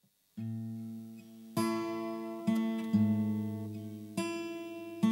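Acoustic guitar playing a slow intro: a chord struck about once a second and left to ring, six in all, starting a moment in.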